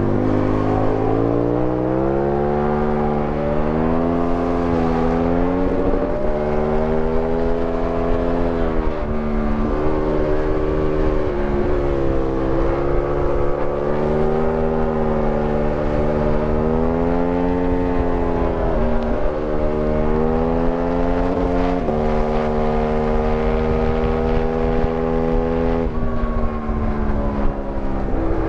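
Aprilia Tuono 1000R's V-twin engine pulling hard from onboard, its note climbing and falling as the throttle works through the bends. Several brief dips break the note, with wind rush on the microphone underneath.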